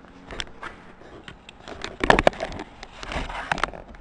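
Irregular clicks and knocks of handling, with a loud clatter about two seconds in.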